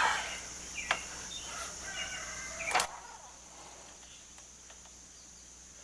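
A wooden board being moved around, with two sharp knocks about a second in and near three seconds in. Faint clucking from chickens comes between the knocks.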